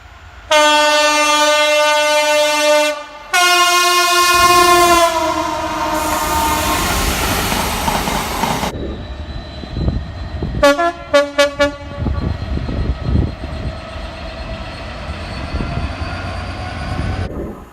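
Train horn sounding two long blasts, the second dipping slightly in pitch, followed by the rumble of a passing train. Then a train horn gives a quick series of about five short toots over the noise of a train running by.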